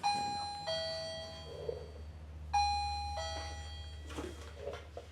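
Electronic two-tone doorbell-style chime sounding a descending "ding-dong" twice, about two and a half seconds apart, each note ringing out and fading.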